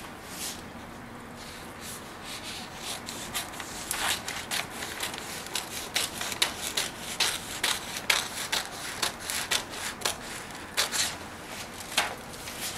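Paper pattern pieces rustling and crinkling as they are handled and cut with scissors. The crisp, irregular rustles start about two seconds in and keep up busily after that.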